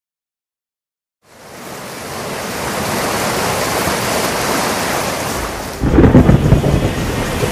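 Rain and thunder sound effects: silence, then steady rain fades in over a couple of seconds, and about six seconds in a rumble of thunder breaks over it, the loudest part.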